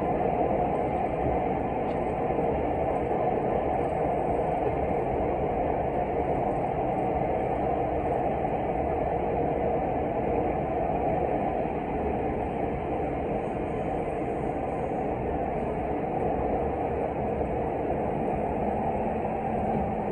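Running noise of a Tokyu 5050 series electric commuter train heard from inside the passenger car: a steady rumble of wheels on rail at speed, easing slightly about halfway through.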